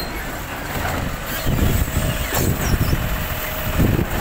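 Side-loading recycling truck's hydraulic arm gripping a wheelie bin and lifting it up to tip into the hopper, the truck's engine working the hydraulics. A steady whine comes in about two seconds in, with a couple of knocks as the bin rises.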